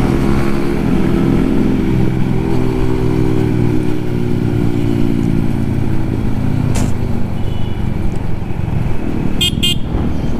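Yamaha MT-15's single-cylinder engine running under way with an Akrapovic exhaust, a steady drone. A vehicle horn beeps twice briefly near the end.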